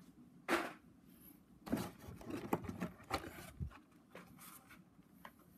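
Carded Hot Wheels blister packs being handled: scattered light clicks and short rustles of plastic blisters and card.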